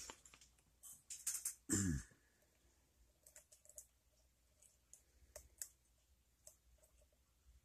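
Lock pick and tension wrench working the pins of a pin-tumbler challenge lock: scattered small metallic clicks and scrapes, with a louder clatter between one and two seconds in.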